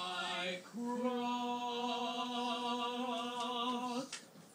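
A puppet character's voice singing unaccompanied: a short note, then one long held note of about three seconds with a slight waver, stopping near the end.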